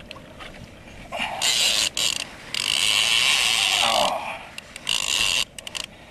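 Fishing reel drag buzzing in several bursts as a hooked yellowtail pulls line off against the drag, the longest run about a second and a half near the middle.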